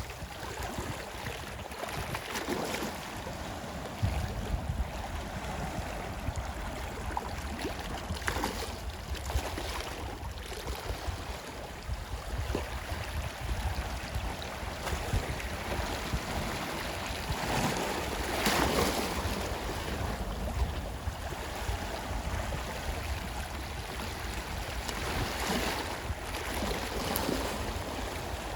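Sea waves washing in on a shore: a steady rush that swells and falls with each wave, the biggest surge about two-thirds of the way through.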